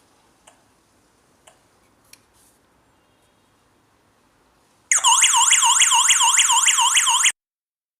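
A few faint clicks, then the wireless security alarm's siren goes off loudly with a fast up-and-down warble, about three to four sweeps a second, and cuts off suddenly after about two and a half seconds: the armed system set off into alarm.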